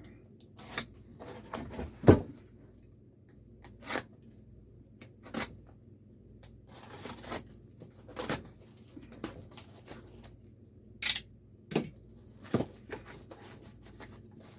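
A package being opened by hand: packaging and tape tearing and rustling in short spells, with scattered knocks and one louder thump about two seconds in.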